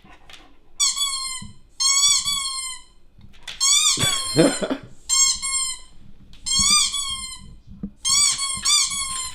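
Squeaky dog toy squeaking over and over through a TV's speakers: about six separate squeezes, each a high, wobbling squeak lasting up to about a second.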